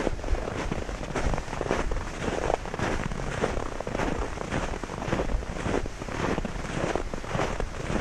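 Footsteps crunching in snow at an even walking pace, about two steps a second.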